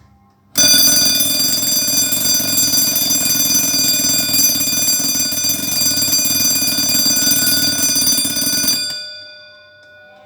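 Bayard Tapageur mechanical alarm clock with a brass case ringing its alarm: a loud continuous ring starts abruptly under a second in and stops about nine seconds in, the bell tones then dying away over about a second.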